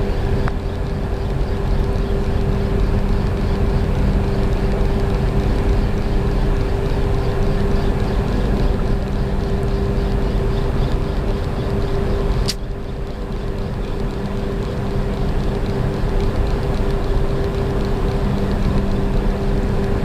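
Boat engine running steadily with a constant hum, and one sharp click about halfway through, after which the level dips slightly.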